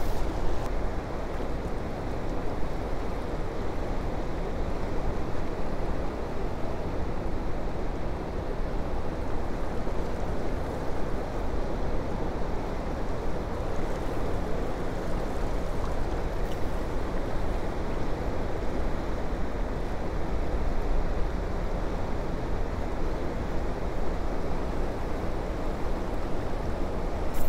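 Steady rushing of heavy water released through a dam, churning in the tailwater. The noise is even, with no breaks.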